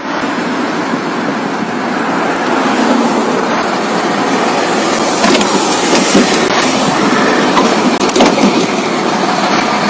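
A bus engine running steadily, with a few short knocks about midway and near the end.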